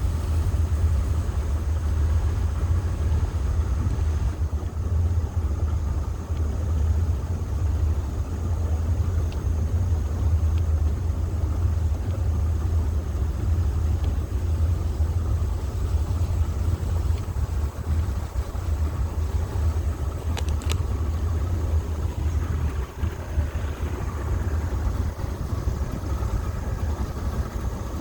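A motor launch's engine running steadily while the boat cruises along, a constant deep rumble with a brief click about twenty seconds in.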